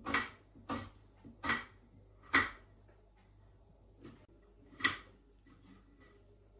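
A series of short, sharp knocks or clatters, four in quick succession, then a pause and two more, over a faint low hum.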